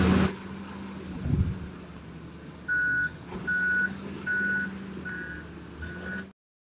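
Wheel loader's reversing alarm beeping five times at one pitch, about one beep a second starting near three seconds in, as the loader backs away from the dump truck, over the steady hum of its diesel engine. A brief burst of noise at the very start is the loudest moment.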